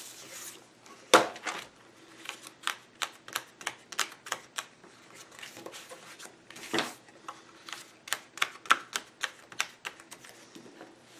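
Paper planner pages being pressed back onto the black plastic binding discs of a disc-bound planner: a run of small clicks and snaps, with louder snaps about a second in and again around seven seconds.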